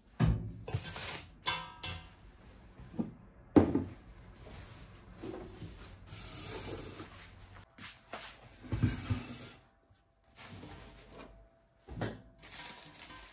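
Kitchen handling sounds: a series of short knocks and thumps mixed with rubbing and scraping, broken by brief moments where the sound cuts out.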